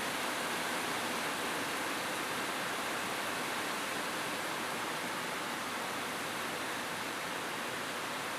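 Steady rain falling on a roof: an even, unbroken hiss with no thunder or single drips standing out.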